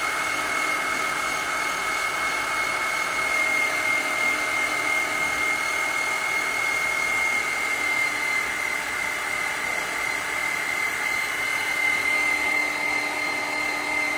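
Small electric feed pellet mill running steadily, its motor giving a high, constant whine as damp corn-and-wheat mash is pushed through it.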